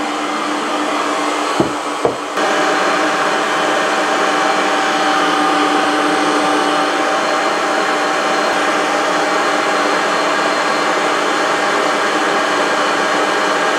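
Planetary stand mixer motor running steadily at speed, its whisk beating goat's cream toward butter. It gets a step louder about two seconds in, then holds an even whirr with a constant hum in it.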